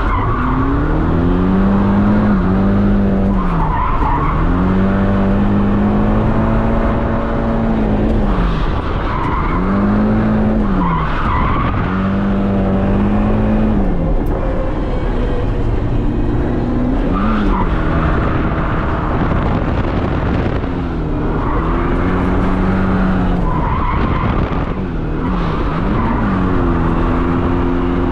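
Nissan S13 drift car driven hard: its engine revs climb and fall again and again as it is throttled through the corners, with tyres squealing in short bursts several times.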